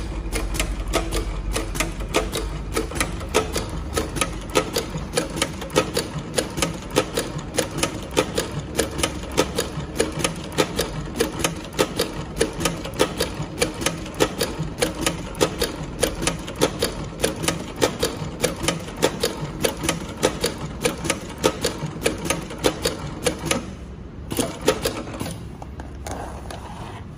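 Computer-controlled industrial double-needle sewing machine stitching a decorative pattern through leather: a steady, even clicking of needle strokes, several a second, over a low motor hum. The stitching stops shortly before the end.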